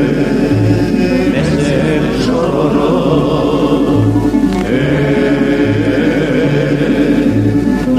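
Tamburica ensemble playing live, the prim (small lead tambura) carrying the melody over steady strummed chords, with a low bass note recurring about every one and a half to two seconds.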